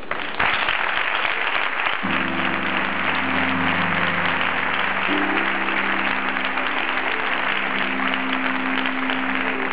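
Audience applauding, with music coming in about two seconds in as held chords that change about five seconds in.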